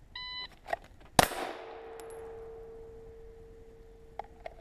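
A shot-timer start beep, then about a second later a single 9mm Glock 17 pistol shot fired from the draw, and the hit steel target ringing with a long steady ping. A few light clicks near the end.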